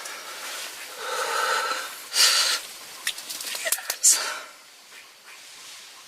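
A man breathing hard and shakily, with a few whispered exclamations: strong breaths about two and four seconds in, and a few light clicks between them. This is a bowhunter's excited breathing right after shooting a buck.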